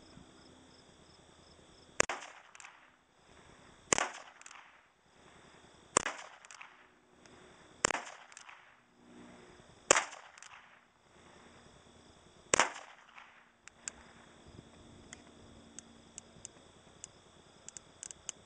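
Ruger Single Six .22 rimfire single-action revolver firing six shots, one every two seconds or so, each with a short ring-off. There are faint small clicks near the end.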